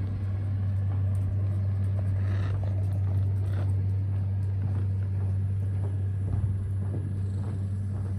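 Steady low mechanical hum, like a motor running, with faint soft thuds now and then from hooves on arena sand.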